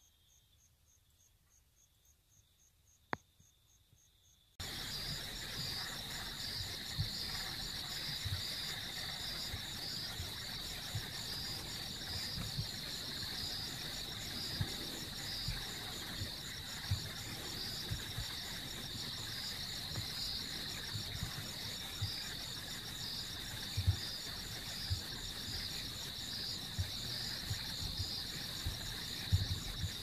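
Crickets trilling steadily at a high pitch, with a rhythmic pulsing over the steady trill. Faint at first, the chorus jumps suddenly much louder about four and a half seconds in. There is one sharp click a few seconds in, and scattered low bumps through the louder part.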